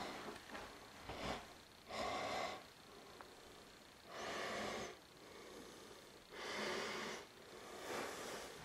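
A person breathing close to the microphone: three slow, noisy breaths about two seconds apart, with quiet room tone between them.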